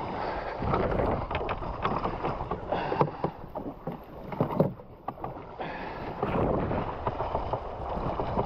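Wind buffeting the action-camera microphone and choppy water slapping against a fishing jetski's hull, with scattered short knocks and splashes, the loudest about three and about four and a half seconds in.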